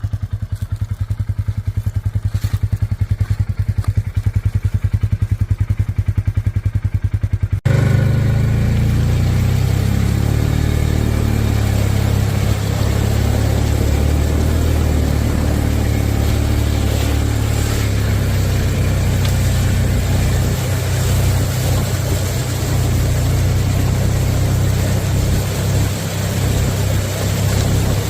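Polaris side-by-side engine idling with a steady, even firing pulse. About eight seconds in the sound cuts abruptly to a louder, steady rushing noise over a heavy low rumble.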